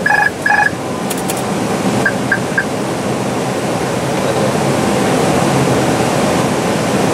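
Steady rush of airflow and engine noise in an Airbus A320 cockpit on final approach. A few electronic tone pulses sound right at the start, and three short beeps come about two seconds in.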